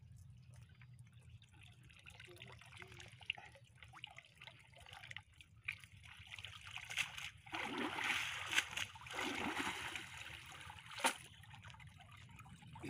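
Water pouring and splashing off a cast net as it is hauled up out of the river, building to its loudest a few seconds past the middle, with a few sharp knocks, the loudest near the end as the net is set down on the wooden platform.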